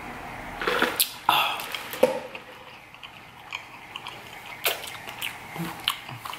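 Close-miked sipping of a drink through a straw, with swallowing and wet mouth clicks; loudest in the first two seconds, then a few scattered wet clicks and smacks.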